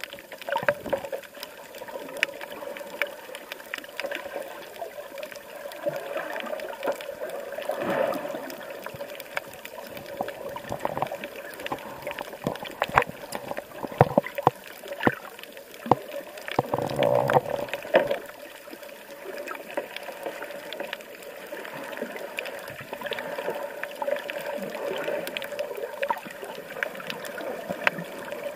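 Water sloshing and gurgling around a camera held underwater, muffled, with many scattered clicks and crackles. It swells louder a couple of times, most strongly a little past the middle.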